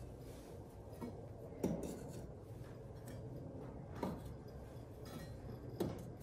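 Glazed ceramic cups set down one at a time on the brick rim of a kiln: a few short clinks about two seconds apart, the first clear one, about a second and a half in, the loudest.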